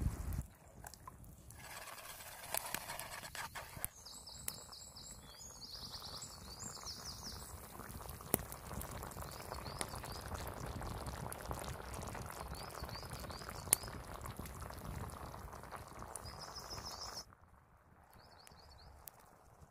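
Food sizzling and crackling over a campfire: a steady hiss with scattered pops, under small birds chirping in short repeated phrases. The sound shifts abruptly at cuts; near the end the hiss stops and only the bird chirps remain.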